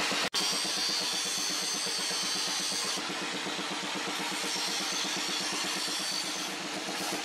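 Angle grinder with an abrasive disc grinding a steel trident blade forged from a wheel bearing race, running steadily with fast regular pulsing under a hiss. The sound drops out for an instant just after the start.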